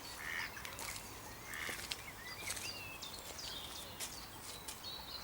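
Small birds chirping and twittering: many short, quick, high calls one after another, with a few faint clicks among them.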